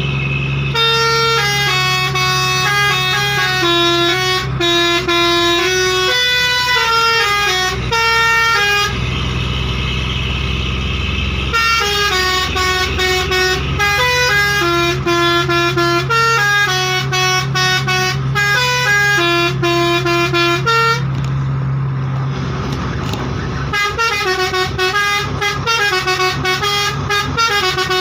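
Six-trumpet basuri (telolet) musical air horn playing a fast tune of stepped notes, over a steady low hum. The tune breaks off twice for a couple of seconds of rushing noise before starting again.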